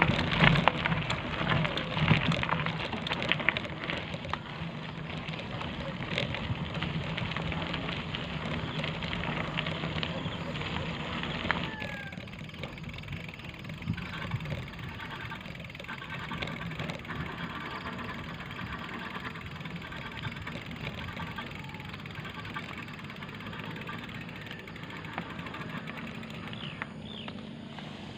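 Bicycle rolling over a rough dirt track: tyres on gravel and the frame rattling over bumps, with many clicks. The rattle eases and turns quieter about twelve seconds in.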